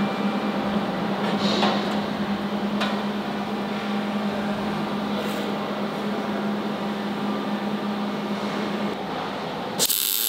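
A steady low hum of shop machinery, then near the end a short burst of welding-arc crackle as the bead on a steel crossmember gusset starts.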